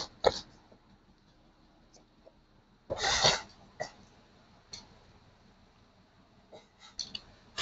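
Low room tone with one short, noisy throat sound from a man about three seconds in, and a few faint clicks scattered through.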